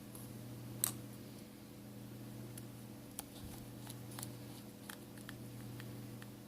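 Small, irregular clicks and ticks of a precision screwdriver and tweezers driving the two pentalobe bottom screws back into an iPhone 5s, over a steady low hum.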